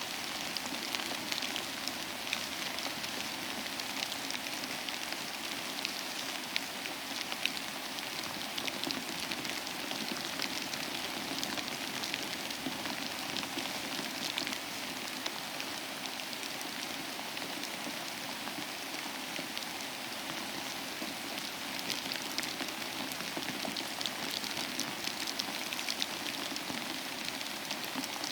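Steady rain falling on a surface, an even hiss with many small drop ticks throughout.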